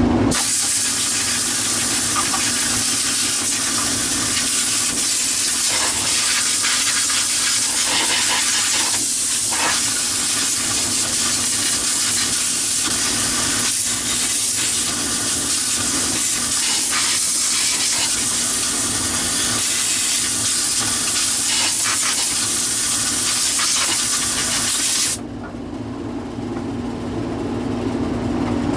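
Compressed air hissing steadily from a blow gun as the power head is blown clean, then cutting off sharply near the end, with a steady hum underneath.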